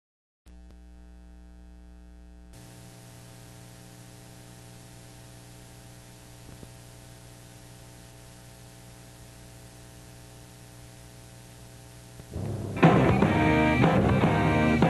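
Steady electrical hum made of several even tones, like mains hum on an old tape. About twelve seconds in, a rock band with drums and guitar starts suddenly and loudly.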